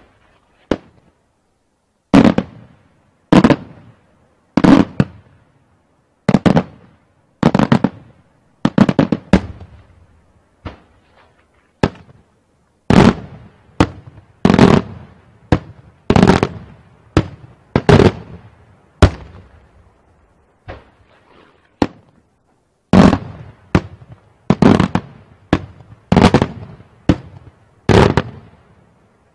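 Daytime aerial firework shells bursting in a long series of loud bangs, about one every second or so, each trailing off in a short echo.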